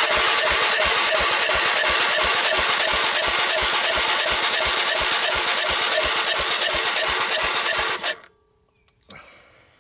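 The electric starter of a 1998 Honda TRX300EX cranks the engine with a compression gauge in the spark plug hole, giving a steady whir with an even beat of compression pulses. It stops abruptly about eight seconds in. This is a wet compression test, and the gauge reaches only about 60 psi, a sign of low compression.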